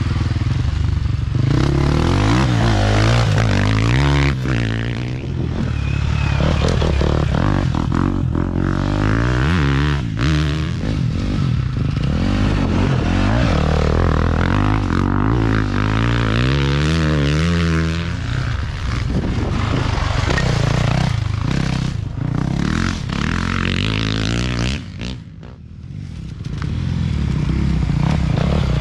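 Racing dirt bikes passing close one after another, engines revving up and down as the riders accelerate and shift, with dirt spraying from the rear tyres. The noise dips briefly near the end before the next bike comes through.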